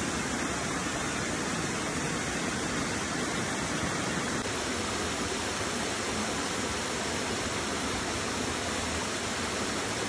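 Small waterfall cascading over rock ledges into a pool, a steady rushing of falling water.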